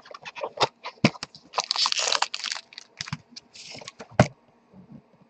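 Handling noises at a table: crinkling, light clicks and taps, and one sharp knock about four seconds in.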